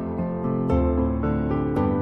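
Soft instrumental background music of plucked-string notes, a new note sounding about once a second.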